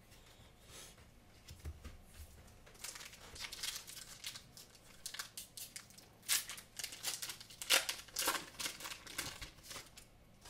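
Foil Pokémon booster pack wrapper being crinkled and torn open: a run of crackly rustles and sharp rips that starts a few seconds in and is loudest about three-quarters of the way through.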